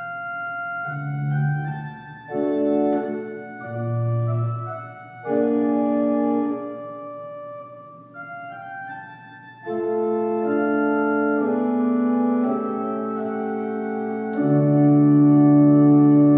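Single-manual pipe organ playing a slow piece of held chords, phrase by phrase with short breaks between them. A full, louder chord is held over the last couple of seconds.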